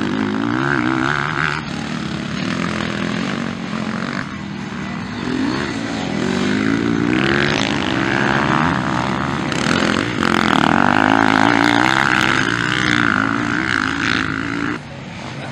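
Motocross dirt bike engines revving hard and shifting, their pitch rising and falling over and over as riders accelerate out of corners. The engine noise is loudest from about ten seconds in, then drops off sharply near the end.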